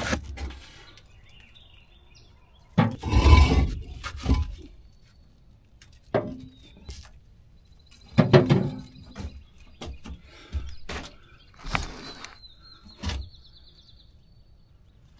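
Hard chunks of dried mortar knocked loose and clattering in a wheelbarrow, a scatter of separate knocks and clinks. The loudest is a crunching clatter about three seconds in, with another about eight seconds in.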